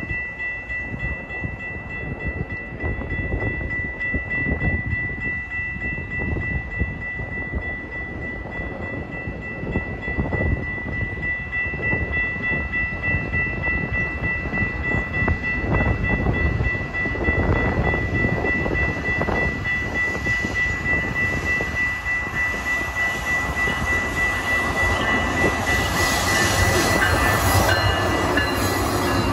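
Railroad crossing warning bell ringing steadily with a high tone while a GO Transit diesel commuter train approaches. The train's rumble grows louder over the last few seconds as the locomotive and bilevel coaches reach and pass the crossing.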